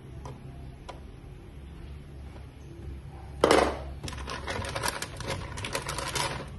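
A few soft knife taps on a plastic cutting board over a low hum, then a sudden clank about three and a half seconds in, followed by a run of rattling and clattering as things are handled in a stainless steel kitchen sink.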